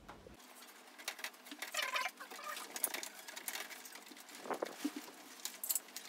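Hands working at the back of an air-conditioner indoor unit: irregular faint rustling and small clicks of plastic casing and pipe covering being handled.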